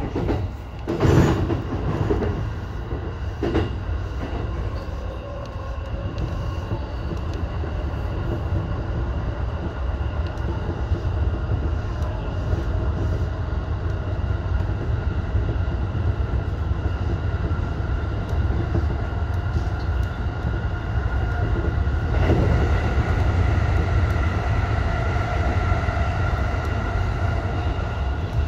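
Electric commuter train running along the line, heard from behind the driver's cab window: a steady low rumble of wheels on rail with a faint steady whine. There are a few sharp knocks in the first few seconds, and the running noise grows louder about two-thirds of the way through.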